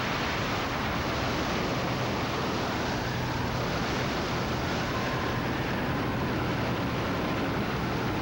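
Wind of a large tornado rushing steadily, an even noise with a low rumble under it.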